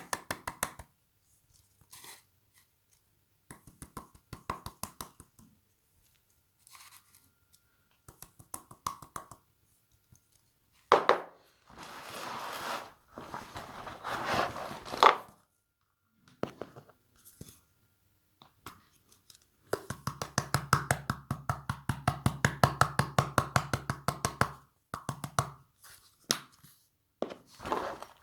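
Slime being squeezed and stretched by hand, making runs of rapid small wet clicks and pops with short pauses between. A low steady hum sounds under the clicking from about 20 to 24 seconds in.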